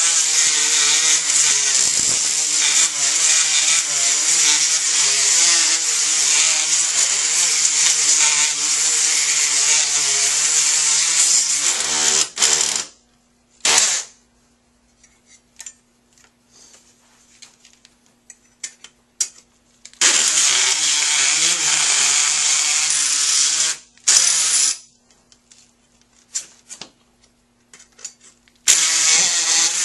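Surgical oscillating bone saw cutting a synthetic bone model through a femoral cutting block, making the femoral cuts for a total knee replacement. The saw runs for about twelve seconds with its pitch wavering as the blade bites, then gives a short blip, cuts again for about four seconds from twenty seconds in, blips once more, and starts again near the end. Between cuts there are only faint clicks and a low steady hum.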